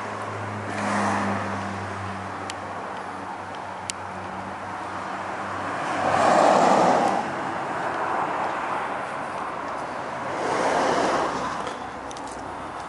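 Road traffic: cars pass by one after another, three swells of tyre and engine noise that rise and fall, the loudest about six seconds in. A low steady hum underneath fades away about halfway through.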